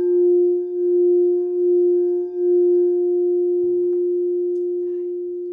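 Singing bowl played by rubbing a wooden mallet around its rim: one steady low ringing tone with a fainter overtone, wavering in loudness about once a second. After about two and a half seconds the wavering stops and the bowl rings on, slowly fading.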